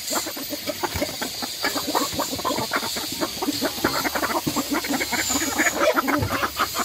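A flock of hens clucking while pecking rapidly at the dirt floor, a dense run of short, quick taps.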